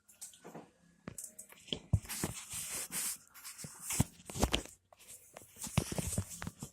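Rustling, scuffing and soft knocks, with short bursts of hiss and no horn blast.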